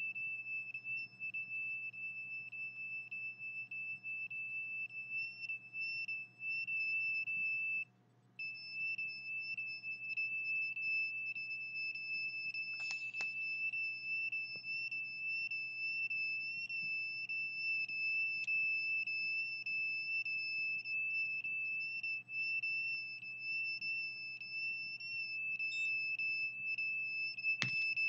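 Handheld RF detector sounding a steady high-pitched alarm tone, broken once by a short gap about eight seconds in; the owner takes it as the sign that she is being scanned with microwaves.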